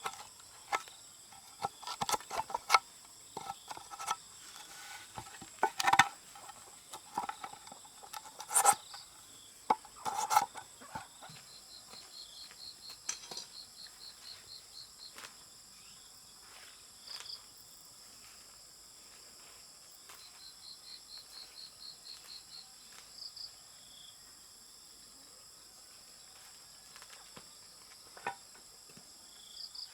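Crickets chirping in regular trains of quick pulses over a steady high insect drone. Scattered sharp knocks and clinks, the loudest sounds, fall in the first ten seconds or so.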